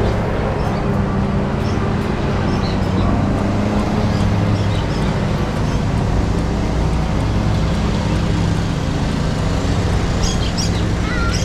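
Steady loud rumble of road traffic with a low hum, and a few birds chirping near the end.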